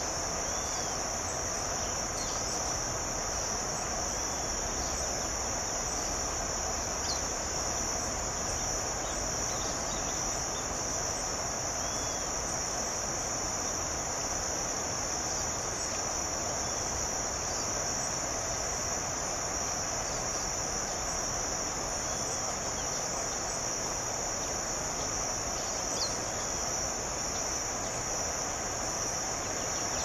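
Steady high-pitched insect chorus, a continuous unbroken drone, over an even hiss, with a few short faint chirps scattered through.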